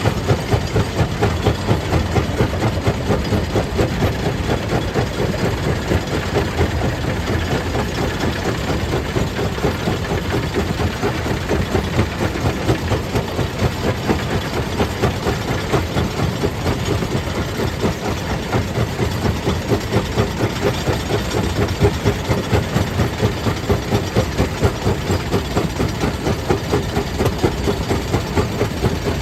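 Stone crusher plant running: a steady, heavy mechanical drone with a regular pulse of about two to three beats a second.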